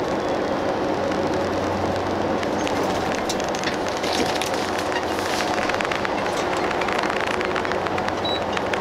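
Airport limousine bus running steadily, heard inside the cabin: a constant engine and road drone with many small rattles and clicks, thickening after the first few seconds.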